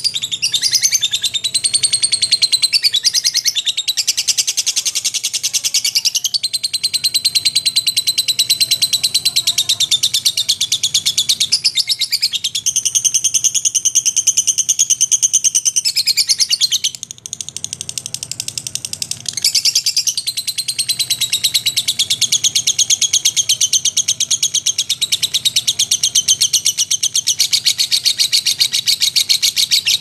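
Lovebird giving its long, rapid chattering trill (ngekek), high-pitched and pulsing very fast, with its pitch shifting every few seconds; it falters briefly about 17 seconds in, then carries on.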